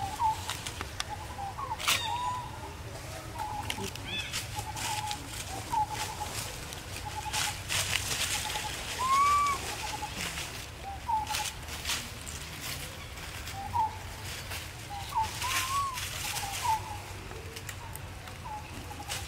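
Outdoor ambience with short animal chirping calls repeating about once a second, a few longer rising-then-falling notes among them. Scattered clicks and rustles run underneath.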